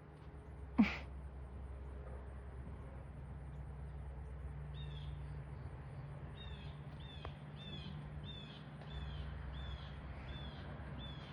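A bird calling in a rapid run of short, high chirps, about two to three a second, over a steady low hum. A single sharp, short sound comes about a second in.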